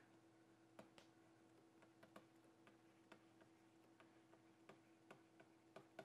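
Near silence: faint, irregular light ticks of a stylus tapping and dragging on a tablet screen during handwriting, over a faint steady hum.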